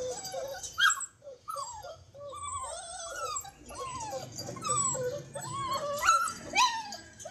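A litter of eight-week-old border collie–basenji mix puppies whining and yipping together, many short rising-and-falling cries overlapping, with a few louder, sharper yelps.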